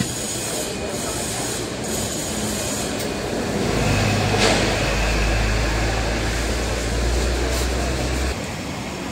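Hong Kong double-decker electric tram pulling away, over a steady rumble of the car. A strong low motor hum comes in about four seconds in and cuts off suddenly shortly before the end.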